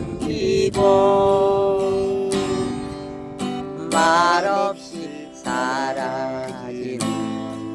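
Music: strummed acoustic guitar under a held melody line that wavers on its longer notes.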